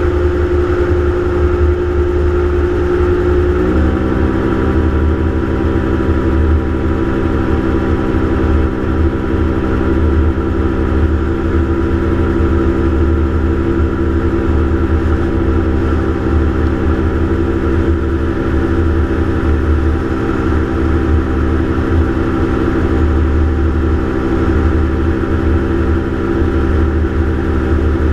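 Gyroplane engine and propeller droning steadily in flight, heard from on board over a heavy low rumble of wind. About four seconds in, the engine note steps up a little in pitch and then holds steady.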